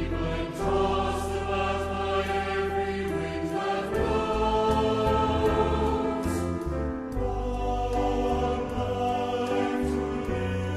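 A Salvation Army songster brigade, a mixed church choir, singing a slow song in long held chords over low sustained accompaniment notes.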